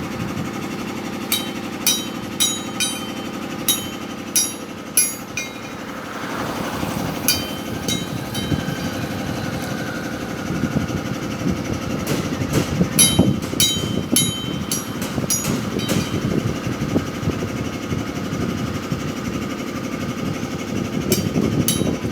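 Irregular metallic clanks of steel being struck, each ringing briefly, coming in bunches over a steady low mechanical hum.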